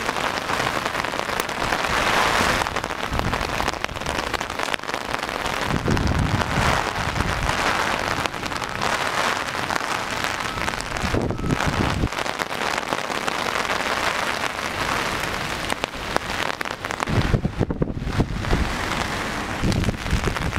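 Steady rain falling on a flooded street, with low gusts of wind buffeting the microphone every few seconds.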